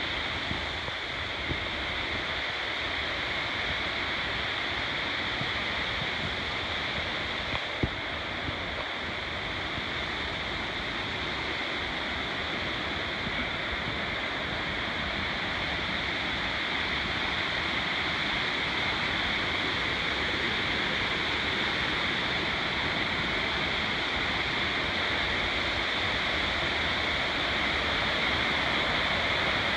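Steady rushing of a cascading mountain creek, growing slightly louder near the end, with one brief knock about eight seconds in.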